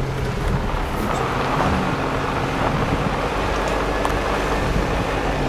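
Vehicle engine and road noise heard from inside the cab while driving slowly on a dirt track: a steady low engine hum under an even rumble of tyres and wind.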